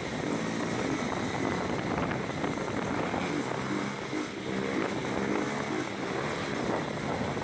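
Honda CB300 motorcycle engine running while riding, its pitch rising and falling with the throttle, over steady wind and road noise.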